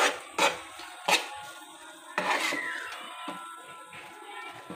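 Metal spoon knocking and scraping against a metal pan while stirring thick atta halwa, with about three sharp knocks in the first half. Faint background music sits underneath.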